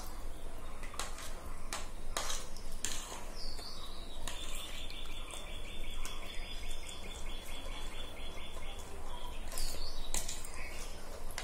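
Forks clicking and scraping on ceramic plates as two people eat noodles. A bird chirps a few times, with a fast trill lasting about four seconds in the middle.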